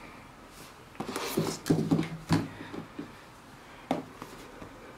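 Handling noise from a tablet being moved and tapped on a desk: a handful of sharp knocks and clicks, clustered between about one and four seconds in.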